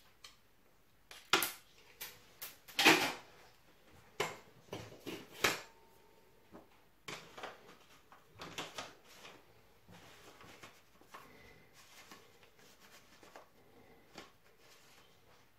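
Irregular knocks, clicks and light clatter of objects being handled and set down in a small room, loudest in the first three seconds.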